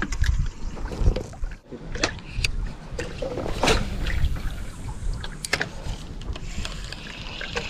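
Water sloshing against the hull of a small fishing boat over a steady low rumble, with scattered sharp clicks and knocks, the loudest a little under four seconds in.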